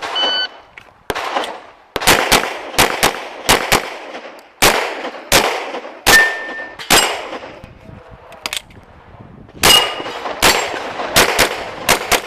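Glock 24 .40 S&W pistol fired in quick strings of shots during a practical-shooting stage, about two dozen rounds with a pause of roughly two seconds in the middle. A few shots are followed by a brief metallic ring.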